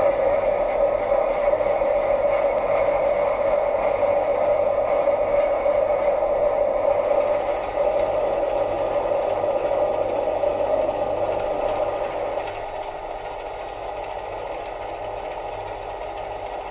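Mini lathe running with a steady whine from its motor and gearing while it turns an aluminium bar; the sound drops a little quieter about twelve seconds in.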